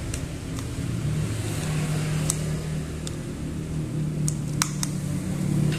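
Plastic back cover of a Vivo Y55s being pried open by hand along its side edge: several small sharp clicks as the cover's clips let go, over a steady low hum.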